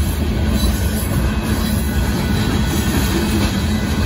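Union Pacific freight train's covered hopper cars rolling past at a grade crossing: a steady, unbroken rumble of wheels and cars.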